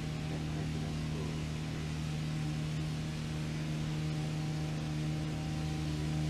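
Small fishing boat's motor running steadily, a constant even hum.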